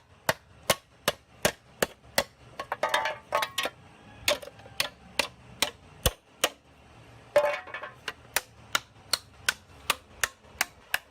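Hammer tapping on sheet metal in a steady rhythm, about three blows a second, with a brief metallic rattle about three seconds in and again near the middle.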